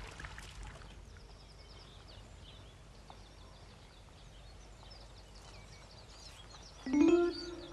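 Faint outdoor ambience with small birds chirping faintly. About seven seconds in, a loud held musical note comes in as background music starts.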